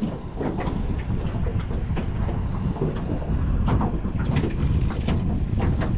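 Wind buffeting the microphone in a low, steady rumble, with irregular knocks and slaps of choppy water against the jon boat's hull.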